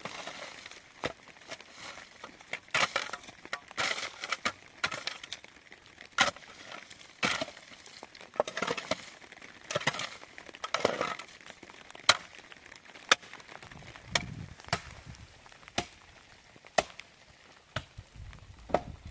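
Repeated sharp knocks, about one a second, with rustling and scraping between them: blows of a hand tool during building work.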